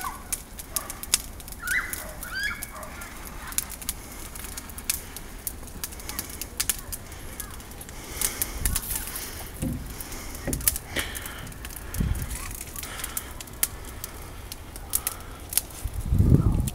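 Fire in a metal fire pit crackling, with sharp pops scattered throughout. A couple of short rising bird chirps come in the first few seconds, and a loud low rumble comes near the end.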